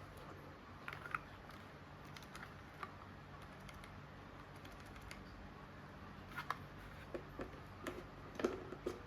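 Scattered sharp clicks, a few spaced out early, then a quicker irregular run in the last few seconds, like individual keys of a low-profile mechanical keyboard with brown switches being pressed, over a faint steady hum.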